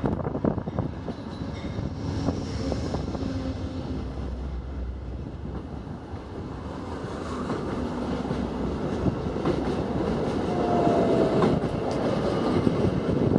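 Amtrak passenger train led by a GE Genesis P42DC diesel locomotive passing close by, its wheels clacking over rail joints under a steady rumble that grows louder as the cars go past. A brief high squeal comes about ten seconds in.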